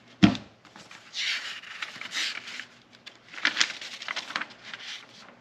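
A sharp thump about a quarter second in, then paper rustling and crinkling in several swishes as an instruction manual is opened and its pages handled.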